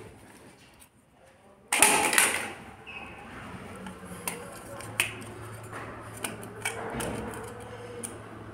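Small clicks and taps of a plastic switch-and-socket module and screwdriver being handled while a wire is connected to its screw terminals. A loud burst of noise comes about two seconds in, and a low steady hum starts about halfway.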